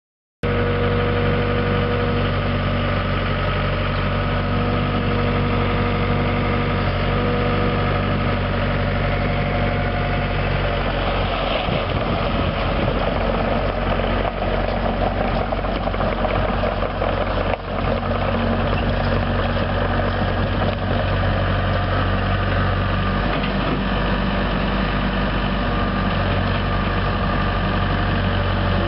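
Nissan four-cylinder diesel engine of a 1995 Hitachi EX75 excavator running steadily, cutting in suddenly just after the start. From about eleven seconds in, its sound grows rougher and busier.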